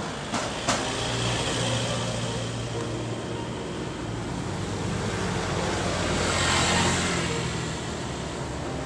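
Road traffic on a hillside road: engine hum and tyre noise from passing cars, swelling as a vehicle drives past close by about seven seconds in. Two short knocks come right at the start.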